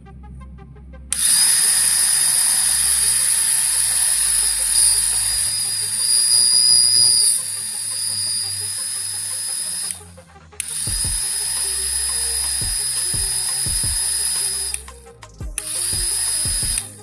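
Small high-speed electric motor running with a steady high-pitched whine, in three runs: a long one of about nine seconds, a shorter one of about four, and a brief one near the end.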